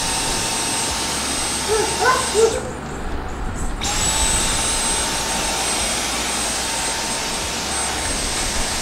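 Dyson V10 cordless vacuum running handheld on sofa upholstery with a steady high whine. About two and a half seconds in the motor cuts off, after a few brief louder sounds, and it starts again a second later, the whine rising quickly as it spins back up.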